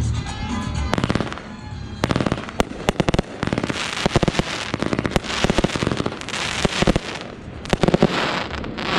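Aerial fireworks shells bursting in quick succession with sharp reports. From about the middle on, a dense crackle from gold crackling stars runs under the reports.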